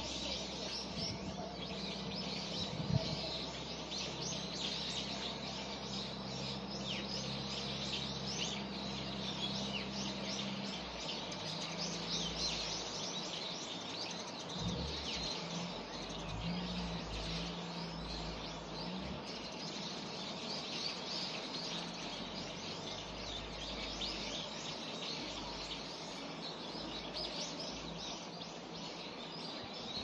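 Many small songbirds chirping and twittering continuously, over a low steady hum of distant traffic that changes its pitch pattern about a third of the way through.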